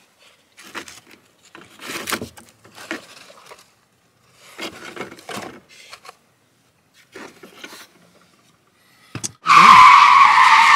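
A pleated cabin air filter scrapes and rubs in short strokes as it is slid into its plastic housing. Near the end comes a knock, then a loud screech lasting about two seconds.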